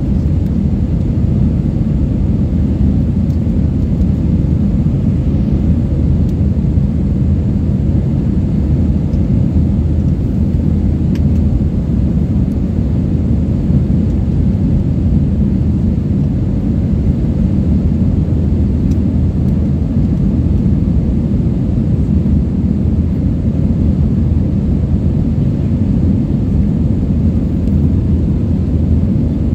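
Steady low roar inside a jet airliner's cabin in flight: engine and airflow noise heard from a window seat.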